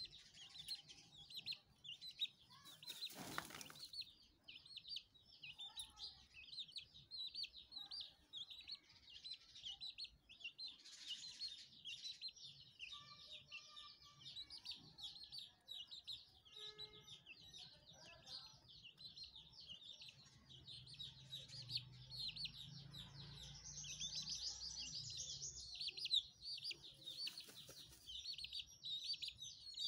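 Birds chirping, quick and high-pitched, with a few lower chicken calls around the middle. A brief rush of noise comes about three seconds in and again near the end, as the dust-bathing hen shakes dirt through her feathers.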